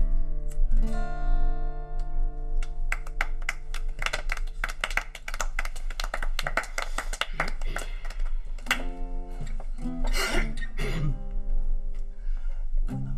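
Acoustic guitar: held chords at first, then quick strumming from about three seconds in.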